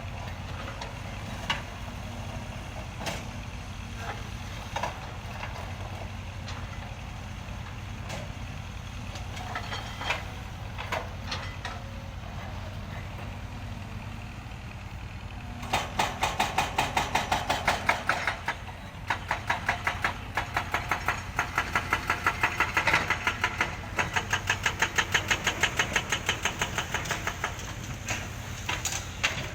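Heavy vehicle engine idling steadily, with scattered clicks and knocks. A little past halfway a rapid, regular metallic clatter starts, several beats a second, and becomes the loudest sound until near the end.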